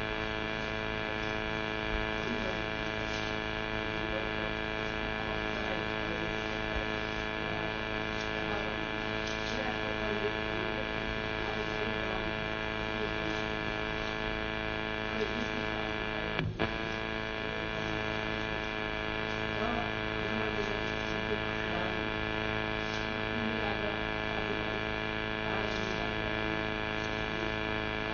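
Steady electrical mains hum and buzz, many tones holding level throughout, with one brief break about sixteen and a half seconds in.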